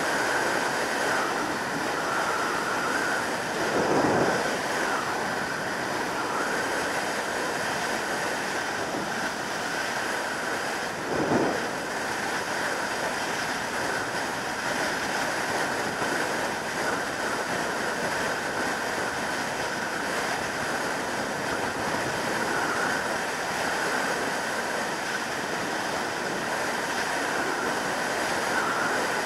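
Steady wind rush over the microphone of a 2003 Yamaha YZF600R Thundercat sport bike riding at motorway speed, with two brief louder swells, about four and eleven seconds in.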